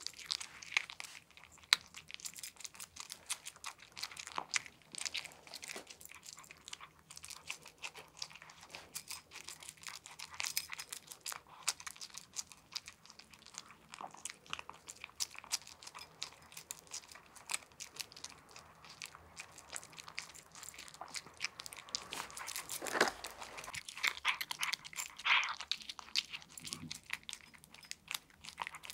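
A cat crunching dry kibble: a steady run of rapid, irregular crunches, louder for a few seconds toward the end.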